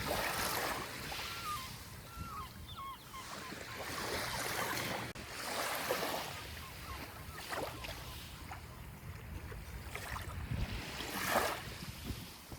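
Sea waves washing onto the shore, with surges of surf noise every few seconds and the strongest wash near the end, over a steady wind. A few faint short bird calls come in the first three seconds.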